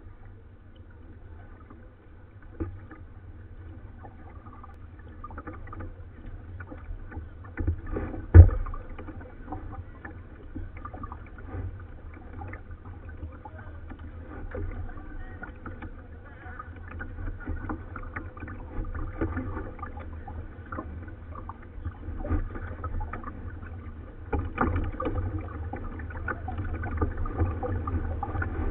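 Kayak being paddled: paddle strokes with splashing and dripping water and scattered small knocks, picked up by a camera mounted on the kayak's bow, over a low steady rumble. A single sharp knock about eight seconds in is the loudest sound.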